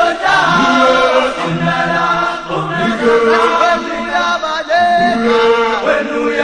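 Traditional African choral chanting: a group of voices singing together in a call-and-response style chant, without clear drumming.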